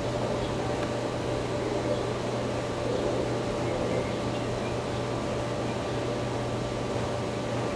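A steady low hum under an even hiss of background noise, with no distinct events.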